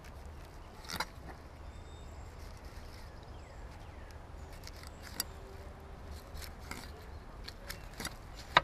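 Knife filleting a tautog on a paper-covered table: quiet cutting and scraping with a few sharp clicks, the loudest near the end, over a low steady rumble.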